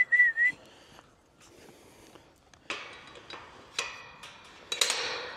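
A person whistling one short, slightly wavering note to call a dog, ending about half a second in. Later come three sharp knocks about a second apart, each with a short ring.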